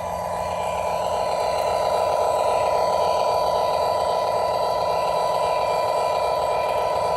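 O scale model train running on the layout, a steady mechanical hum and rumble that grows louder over the first couple of seconds, then holds.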